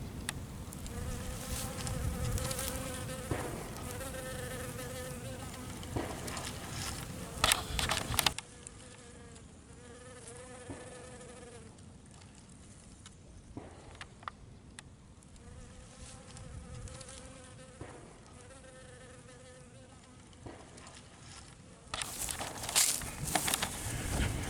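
Honeybees buzzing, the hum coming and going in short stretches as bees fly past, with a few sharp clicks.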